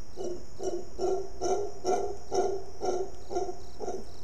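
Mantled howler monkey calling in a rhythmic series of short, deep calls, about two a second, growing louder toward the middle. A steady high insect hum runs underneath.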